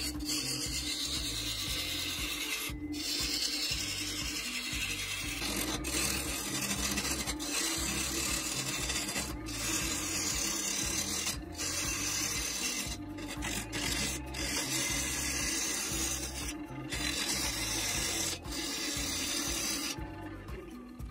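A gouge cutting the outside of a spinning Chinese elm bowl blank on a wood lathe: a steady rasping hiss of shavings peeling off the wood, broken by short gaps where the tool comes off the cut. The cutting stops about a second before the end.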